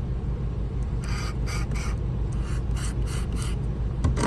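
Steel shear blade drawn against a running 600-grit sharpening plate in about seven short scraping passes over the steady low hum of the machine's motor: test passes at a 30-degree angle to see where the marker comes off the edge. A couple of sharp knocks near the end.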